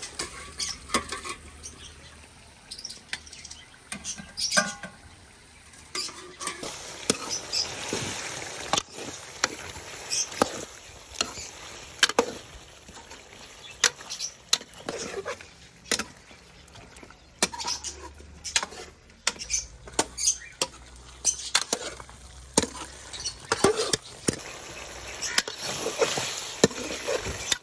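Steel spatula stirring and scraping a meat curry in a steel wok, giving irregular metal clinks and scrapes, with the masala sizzling in bursts as it fries.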